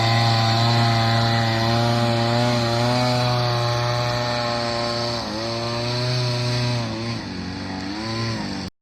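Small boat motor running steadily, its note dipping and recovering twice: about five seconds in and again near the end.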